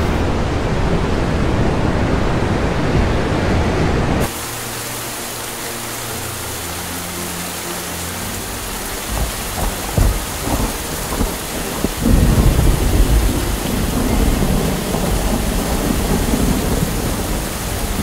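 Sea surf breaking on a shore, a deep steady wash, then a sudden cut about four seconds in to steady rain hiss. Thunder rumbles in the rain from about nine seconds on, loudest and most sustained from about twelve seconds in.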